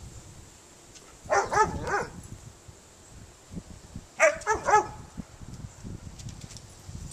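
Dog barking in play: two quick runs of short, high barks, about four in each, a little over a second in and again about four seconds in.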